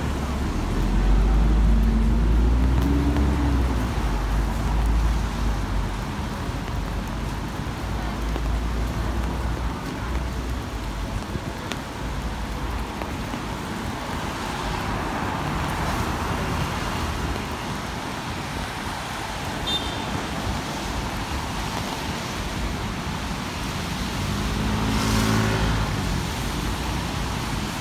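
Road traffic on a rain-soaked city street, over a steady hiss of rain and tyres on wet road. A vehicle's engine passes close at the start, and another passes near the end.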